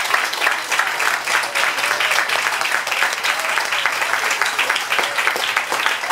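Crowd of wedding guests applauding: dense, steady clapping from many hands.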